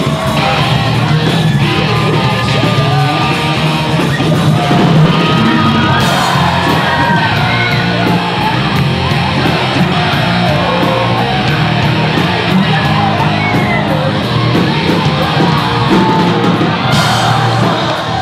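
Live rock band playing loudly, with electric guitar, drums and a singer on a microphone through the PA.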